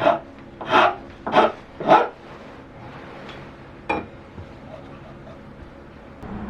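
Four quick strokes of a hand tool working wood, about half a second apart, stopping after about two seconds, then a single sharp tap about four seconds in.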